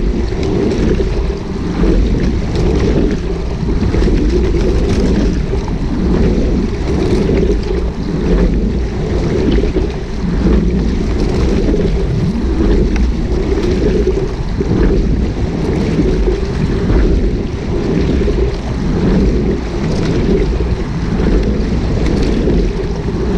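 Wind rumbling on the microphone of a camera on a rowing shell, over water rushing past the hull as the sculler rows.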